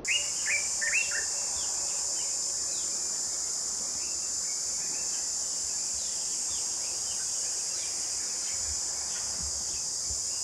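A dense, steady, high-pitched insect chorus with birds chirping over it, several quick calls in the first second and scattered single chirps after.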